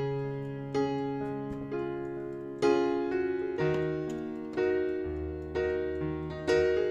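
Background piano music: gentle chords struck about once a second, each ringing out and fading before the next.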